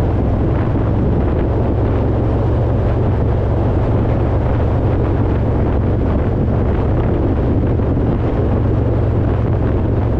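Harley-Davidson Road Glide's V-twin engine running steadily at cruising speed, with wind rushing over the microphone.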